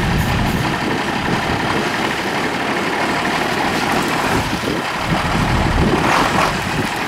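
Unimog trial truck's engine running at low revs as it crawls over rocks, with a brief louder patch about six seconds in.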